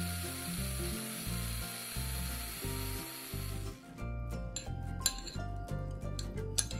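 Small electric food processor running steadily as it chops vegetables, cutting off abruptly a little past halfway. After that come light clinks of a bowl and spoon against a glass bowl, all over background music.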